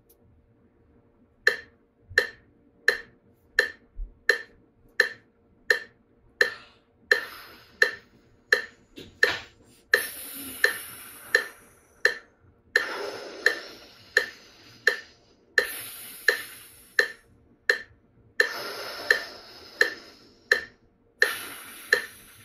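Metronome clicking steadily, about three clicks every two seconds. From about a third of the way in, a person breathes in and out through the mouth in time with it, each breath lasting about four clicks, with the out-breaths rushing against a hand held in front of the mouth.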